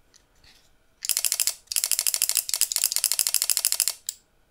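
Two-channel relay board on a homemade toy gun clicking in a rapid, even stream, around ten clicks a second, for about three seconds with a brief break. This is the gun's relay 'firing' sound on automatic, running through its magazine. One more single click follows.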